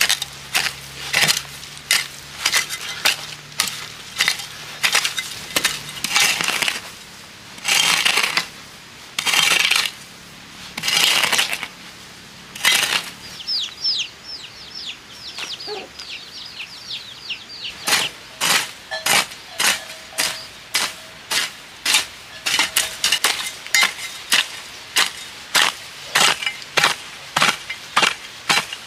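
A hand hoe chopping and scraping through dry soil and weeds in repeated strokes, about one or two a second, some dragged for half a second. The strokes stop for a few seconds in the middle while a chick gives a quick run of high, falling peeps, then start again.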